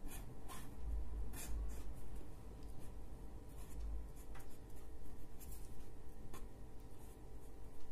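Felt-tip marker drawing strokes on paper: short scratchy strokes come at irregular intervals, over a low steady rumble.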